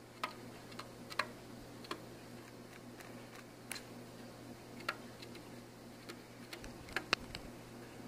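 Pet pigeon pecking at a plastic bag and walking on a wooden tabletop: irregular sharp taps and clicks, with a quick run of three near the end.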